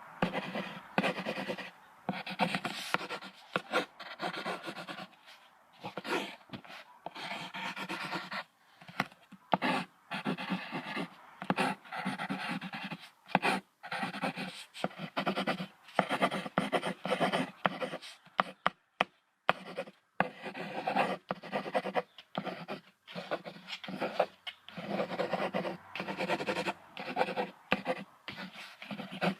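Buffalo calling: a long series of short, rough, repeated calls with brief gaps between them.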